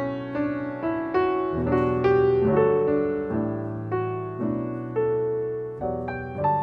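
Steinway grand piano played solo, improvising a worship medley: slow chords struck one after another, each left to ring and fade before the next.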